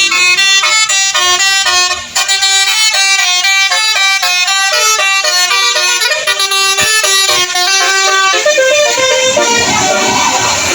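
Telolet basuri horn, a multi-trumpet melodic air horn, playing a quick tune of stepped notes. It starts suddenly, and about eight seconds in the notes give way to a noisier wash.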